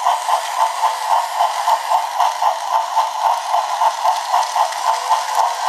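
Small battery-powered toy motors and plastic gearing whirring steadily, with a rhythmic clatter that pulses about four or five times a second.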